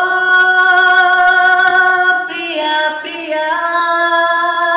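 A man singing in a high voice: one long held note for about two seconds, then a quick shift through a few notes into another long held note.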